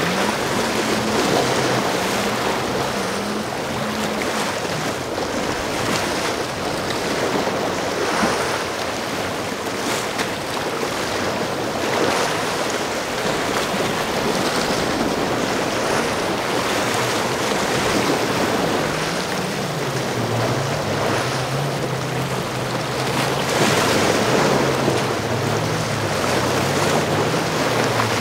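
Surf and wind buffeting the microphone, with a powerboat's engine droning underneath. The engine's pitch wavers up and down through the last third.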